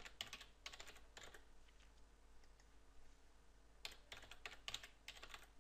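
Faint computer keyboard typing: a quick run of keystrokes in the first second or so, a pause of a couple of seconds, then another run of keystrokes near the end.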